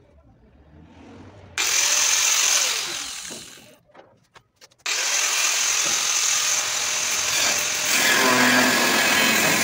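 Corded angle grinder cutting steel at the front of an old truck. It starts suddenly with a high whine, cuts for about a second, winds down with a falling whine, then starts again about five seconds in and cuts steadily.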